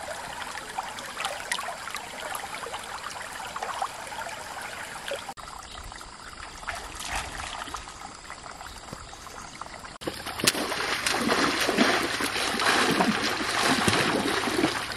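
Shallow stream water trickling over stones. From about two-thirds of the way through, louder, irregular splashing as a person wades and works in the water.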